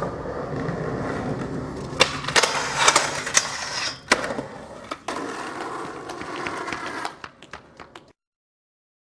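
Skateboard wheels rolling on concrete, with a run of sharp clacks and slaps of the board hitting and landing about two to four seconds in. The board then rolls on, and the sound cuts off about eight seconds in.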